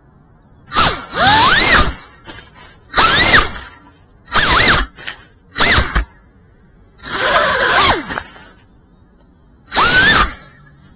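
FPV quadcopter's brushless motors revving in six short bursts, each a whine that sweeps up and down in pitch, with quiet gaps between them.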